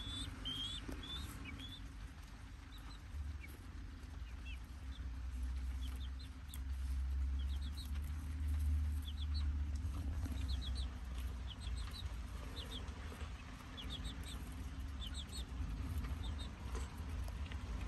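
Young chicks peeping as they peck at a corn cob: short high peeps, singly and in quick runs of two or three, throughout. Underneath, a steady low rumble swells louder around the middle.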